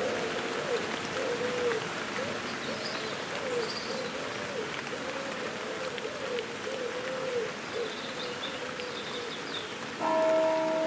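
Light rain falling with faint distant bird calls, under a low wavering hooting tone that repeats about twice a second and fades out about eight seconds in. Bells come back in near the end.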